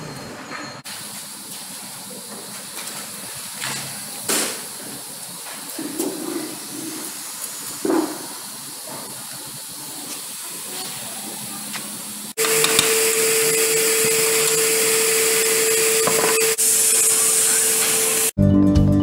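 Woodworking shop noise: a steady hiss with a few scattered knocks of wood, then, about two-thirds of the way through, a woodworking machine starts running loudly with a steady hum. Music cuts in right at the end.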